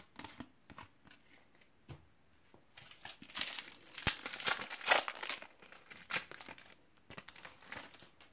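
Foil trading-card packet crinkling and tearing as it is opened by hand, loudest for about three seconds in the middle. A few light taps of cards being handled come before it.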